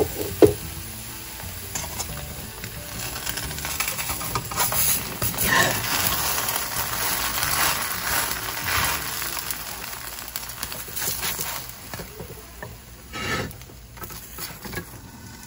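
Bánh xèo crêpe sizzling in oil in a non-stick wok, with a spatula scraping and clicking against the pan as it folds the crêpe over. The sizzling is loudest in the middle and dies down near the end.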